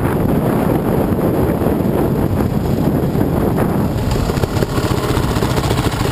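Dirt bike engine running under the rider, with wind buffeting on the helmet camera's microphone. About four seconds in the rushing eases and the engine's steady beat comes through as the bike slows.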